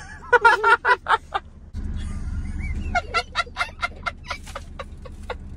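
A young boy giggling in quick short bursts, about five or six a second, half-stifled laughter mixed with crying. There are two runs of it, and a low rumble of car cabin noise comes in under it near the middle.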